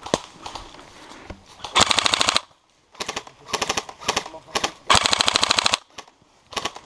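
Airsoft electric rifle, a Tokyo Marui HK416D, firing several short full-auto bursts of rapid, evenly spaced shots. The first burst comes about two seconds in and the longest comes near five seconds.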